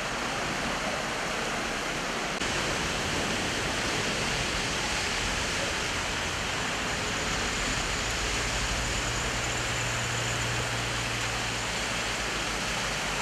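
Steady rushing of floodwater running across a street after a heavy downpour.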